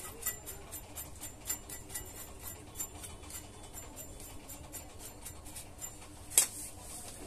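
Brush scrubbing the rusty pump end of a small electric water pump motor to clean off rust and debris, in short strokes several times a second that thin out near the end. There is one sharp click about six seconds in.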